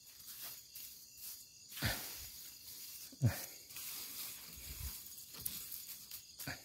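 A hand brushing and patting loose sandy soil around a planted seedling, with two soft thumps about two seconds in and again a second and a half later, over a steady chirring of night insects.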